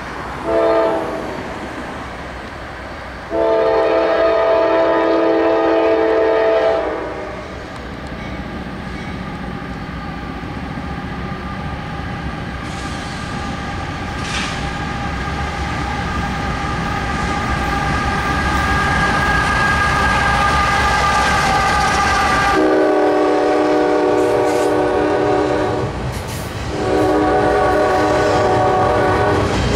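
Freight train horn blowing at a crossing: a short blast, then a long one. The diesel locomotives and wheels then rumble past, getting steadily louder, and two more long horn blasts sound near the end while double-stack container cars roll by.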